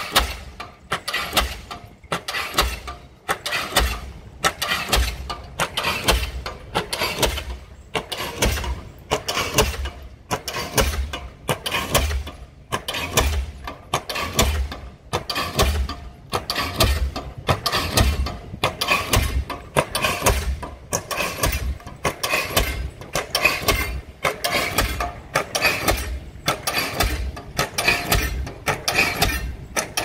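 Guided-rod diesel pile hammer firing and striking a concrete pile, driving it into the ground. The blows come in a steady rhythm, a little over one a second.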